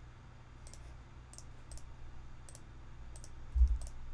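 Scattered computer mouse clicks, about eight over a few seconds, over a steady low hum. A short low thump about three and a half seconds in is the loudest sound.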